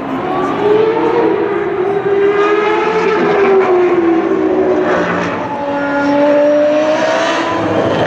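Engines of open-wheel racing cars running at high revs on track, their pitch rising and falling as they accelerate and change gear.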